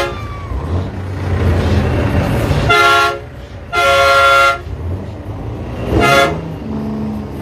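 Semi-truck air horn sounding in short blasts: three of them at about three, four and six seconds in, the middle one the longest, plus the end of one right at the start. A truck engine idles underneath.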